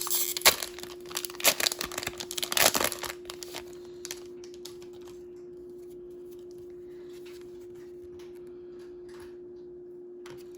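My Little Pony trading-card booster pack wrapper being torn open and crinkled in quick bursts for about three and a half seconds, then only faint handling over a steady hum.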